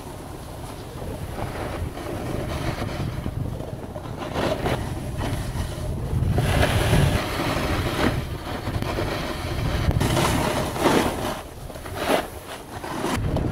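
Wind buffeting the microphone outdoors, a low rumbling rush that surges louder about halfway through and again twice near the end.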